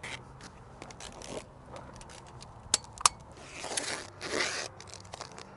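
Steel tape measure blade scraping and rattling as it is drawn out and hooked onto an excavator stick pin, with two sharp clicks about three seconds in.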